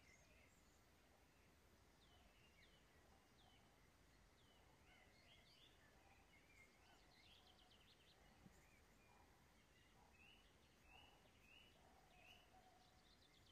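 Near silence: quiet room tone with faint, scattered chirps of small birds in the background.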